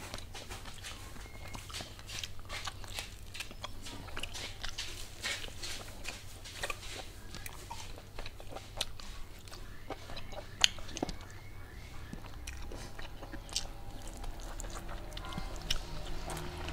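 A person eating chicken by hand, close to the microphone: biting, chewing and lip-smacking in many short, sharp smacks and clicks.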